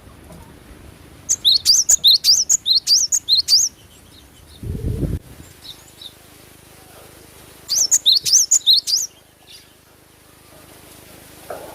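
Cinereous tit (gelatik batu) giving two bursts of rapid, high chattering chirps, several notes a second. A short low thump comes between the two bursts.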